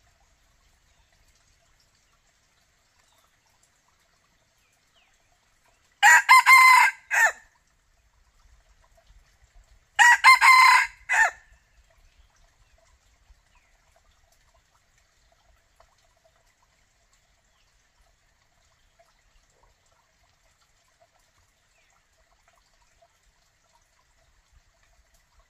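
Red junglefowl rooster crowing twice, about four seconds apart. Each crow is about a second and a half long and ends in a short, clipped final note.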